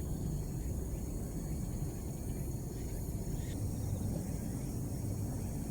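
Steady outdoor ambience: a constant low rumble with faint, thin, high-pitched steady tones above it.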